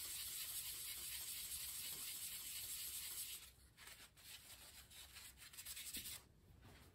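Faint rubbing and handling of a small turned wooden piece, wiped with a cloth or paper towel, over a steady high hiss. About three and a half seconds in the hiss drops away, leaving a few short scratchy rubbing strokes, and the sound falls quieter near the end.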